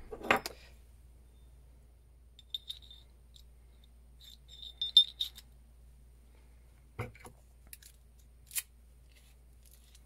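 Small metallic clicks and clinks of a steel ignition lock cylinder and its key being handled: scattered light ticks, a cluster of ringing clinks about five seconds in, and a sharp click about seven seconds in as the key goes into the cylinder.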